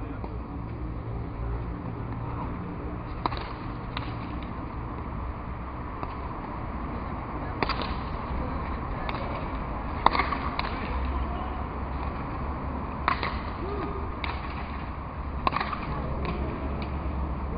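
Sharp cracks of a hard pelota ball struck with a wooden grosse pala and hitting the fronton wall in a rally. There are about a dozen cracks at uneven gaps of one to two seconds, over a low steady rumble.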